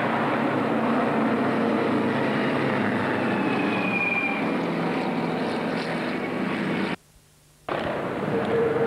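Engines of historic single-seater racing cars running at speed as a group passes, a loud, steady mixed engine noise with a brief rising whine about four seconds in. The sound drops out for under a second about seven seconds in, then returns.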